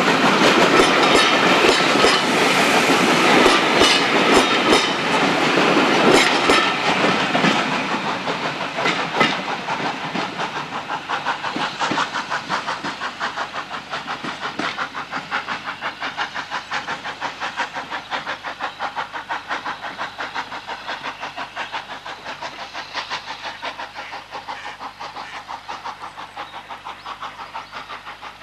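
Steam-hauled passenger train passing close by and going away: loud at first, then the coaches' wheels clicking rhythmically over the rail joints, fading steadily as the train recedes.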